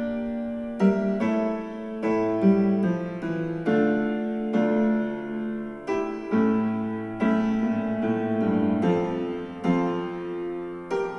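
Slow piano music played back through a Logitech Z407 2.1 speaker set and picked up by a microphone. Struck chords and single notes sound every second or so and ring out between strikes.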